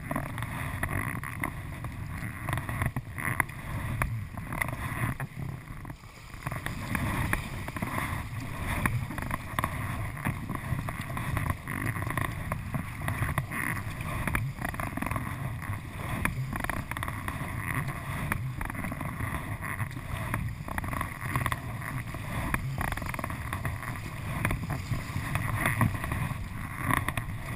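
River water splashing and rushing around the bow of a kayak as it is paddled through choppy current, with the dip and pull of the paddle blades.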